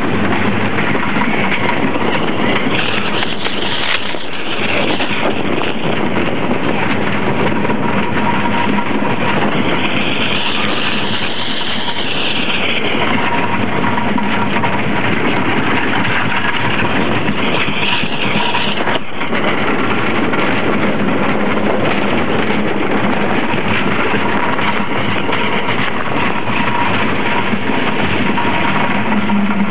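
Wooden roller coaster train running at speed over a TOGO/RCCA-built wooden track, a loud continuous rattle of wheels and structure heard from the front car. High squeals rise and fall around the middle and again shortly before a sharp jolt about two-thirds of the way through.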